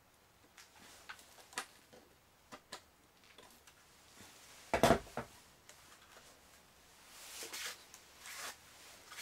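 Handling noise from taking apart an electric unicycle's controller: scattered clicks and knocks of plastic and metal parts, one loud clunk about five seconds in, then rubbing and scraping as the finned controller housing is worked loose.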